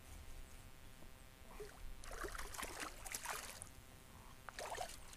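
Water splashing beside a kayak as a hooked white bass thrashes at the surface while it is reeled in, in splashy patches about two seconds in and again near the end.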